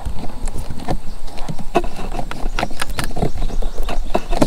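Irregular small clicks and knocks of hands working a scooter's fuse box as a blade fuse is pulled out, over a low rumble.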